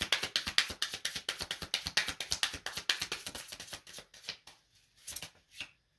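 A deck of tarot cards being shuffled by hand: a rapid run of card flicks that thins out after about four seconds, with a few last taps.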